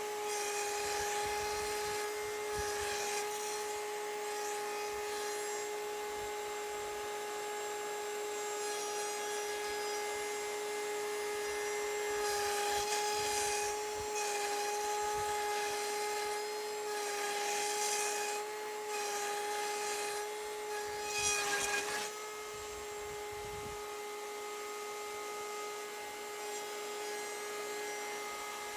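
Router running at speed with a steady high whine while its 1/4-inch straight bit cuts through an MDF panel being turned on a pivot peg. The cutting noise swells several times through the middle, strongest about 21 seconds in, then settles back to the plain motor whine.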